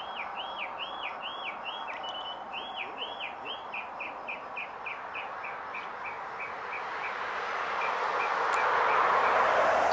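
A small bird singing a long series of repeated slurred whistled notes, about three a second at first, then shorter, quicker and fading. Near the end a vehicle passing on the road swells up and becomes the loudest sound.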